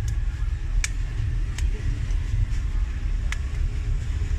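A steady low rumble with four sharp, separate clicks, the sound of small tools working on a smartphone during disassembly.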